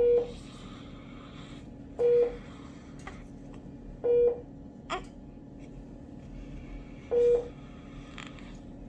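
Electronic beeping from medical equipment: four short single-pitch beeps a couple of seconds apart, over a steady low hum.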